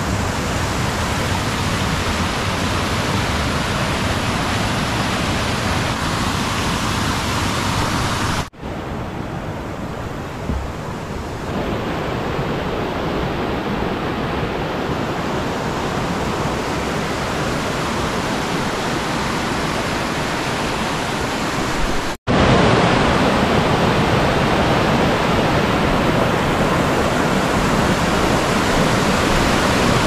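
Mountain stream rushing over granite boulders and through small cascades, a steady loud rush of water. It breaks off abruptly twice, about a third of the way in and about three-quarters in, and is loudest in the last part.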